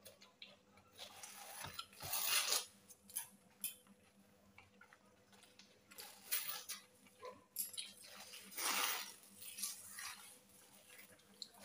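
Faint eating sounds from two people eating egg rolls: scattered bites and chewing, with the crinkle of the paper wrappers in short bursts, the loudest about two seconds in and again around eight to nine seconds.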